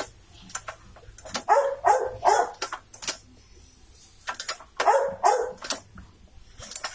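A dog barking in two bouts of several barks, about a second and a half in and again near five seconds, with sharp clicks and knocks between them.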